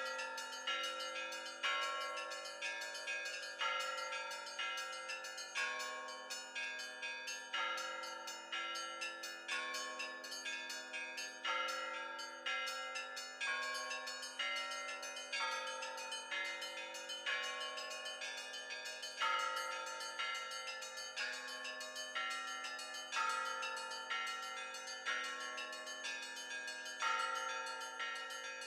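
Russian Orthodox church bells rung by hand by a bell-ringer: a set of bells of several pitches struck in a fast, rhythmic pattern, with a louder stroke about every two seconds and each bell ringing on under the next strokes.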